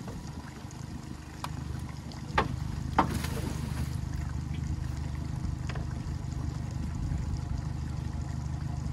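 Steady low rumble of the jon boat's idling motor, with a few sharp knocks, the loudest about two and a half and three seconds in.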